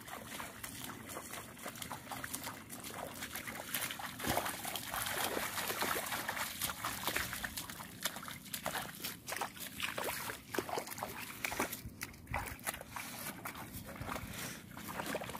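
Bare feet wading and splashing through shallow water in quick, irregular steps, with leafy rustling as they push into water hyacinth.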